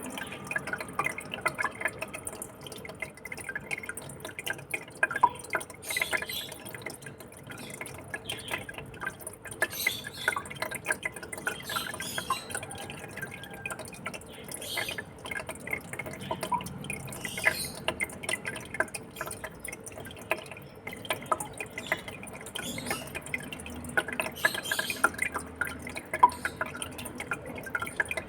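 Water in a home aquarium trickling and dripping: a continuous, uneven patter of small plinks and splashes over a soft hiss of moving water.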